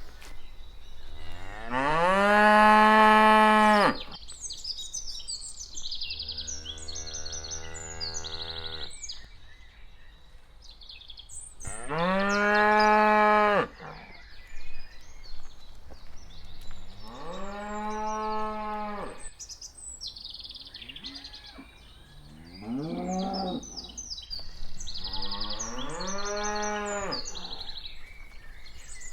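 Cattle mooing: about six long, drawn-out moos spaced through the stretch, the loudest two near the start and about midway, one lower and softer.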